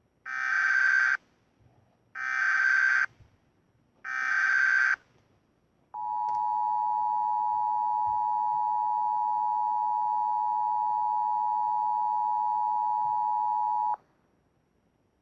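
Emergency Alert System (EAS) alert tones: three short bursts of SAME header data about a second apart, then the two-tone attention signal, a steady dual tone held for about eight seconds before it cuts off. This is the start of an emergency alert broadcast, here a civil emergency message.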